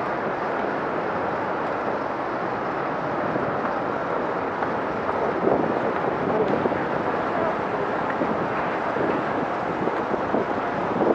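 High wind buffeting the microphone, a steady rushing noise, with stronger gusts about halfway through and again near the end.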